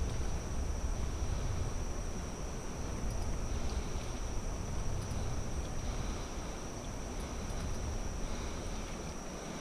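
Insects singing in one steady high-pitched tone along a summer riverbank, over a low rumble on the microphone that thins out near the end.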